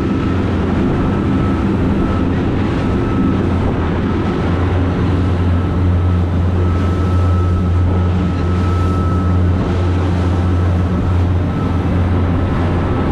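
A motor boat's engine running steadily under way: a loud, deep, even drone with a faint steady whine above it, and wash from the wake and wind mixed in.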